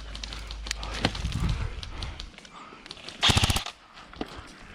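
Airsoft gun firing a short rapid full-auto burst about three seconds in, with scattered fainter single shots and clicks before it.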